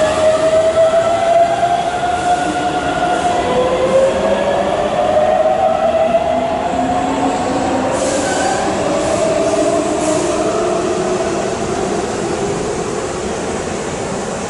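Keihan electric train moving through the underground Sanjo station: a motor whine that climbs slowly in pitch several times over, over a steady running rumble, as the train accelerates.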